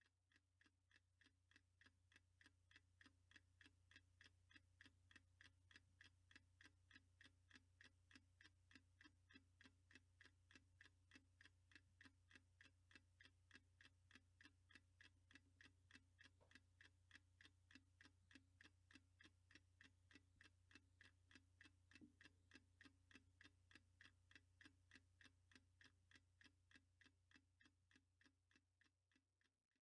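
Even, steady mechanical ticking, about three ticks a second, over a faint low hum. It fades in at the start and fades out at the end.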